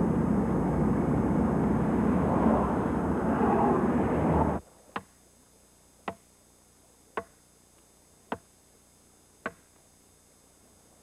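Steady road and wind noise inside a moving car, which cuts off suddenly a little over four seconds in. Then five sharp, evenly spaced hammer blows on wood, about one a second, as a wooden grave marker is being nailed together or driven in.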